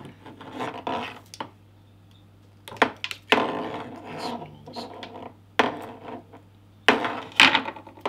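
A blue Ethernet cable rubbed, scraped and twisted by hand near its plug as it is deliberately damaged to break its wires. Rough rasping bouts and several sharp clicks, with a brief lull about two seconds in; the loudest scraping comes near the end.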